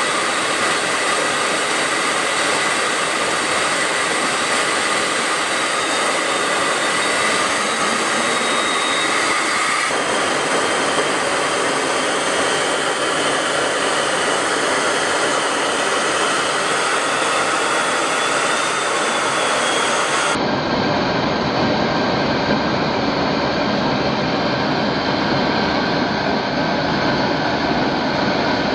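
Steady jet engine noise in flight: a continuous rushing sound with a thin high whine over it. It changes abruptly about ten seconds in, and again about twenty seconds in, where it turns heavier in the low end and duller on top.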